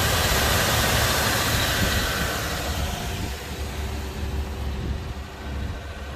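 1978 Chevrolet Caprice engine idling with a steady low rumble and a hiss, heard close up at first and growing quieter about halfway through.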